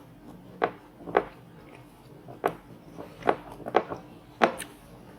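Close-up chewing of crunchy fried seafood, with about six sharp crunches spread across a few seconds.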